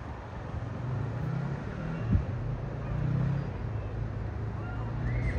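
Boeing 777-200ER airliner passing overhead, its jet engines making a steady low rumble that swells slightly in the middle.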